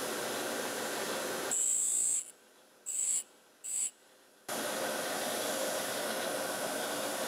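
Bench grinder running with a steady hiss. A steel twist drill bit touches the grinding wheel three times, the first time for under a second, making a high-pitched grinding hiss. Between the touches the sound drops away almost completely, and the steady running noise returns after the third.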